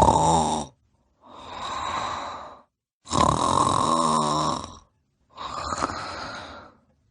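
Snoring in a slow breathing cycle. Two loud snores with a fluttering rattle alternate with two quieter, breathy breaths, each lasting about a second or more, with short silences between them.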